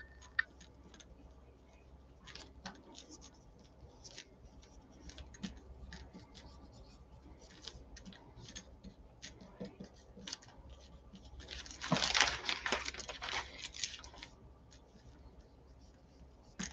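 Marker pen scratching and squeaking in short strokes as it writes on a plastic freezer bag, with a louder rustle of plastic bags being shifted about twelve seconds in.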